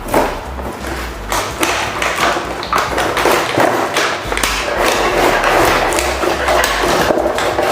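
Toy train set being unboxed: the cardboard box and loose plastic track pieces are handled, giving a dense run of taps, knocks and thumps.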